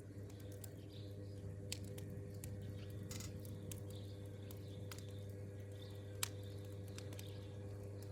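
Campfire crackling: sparse, irregular sharp pops of burning wood, one louder about six seconds in, over a steady low hum, with faint bird chirps.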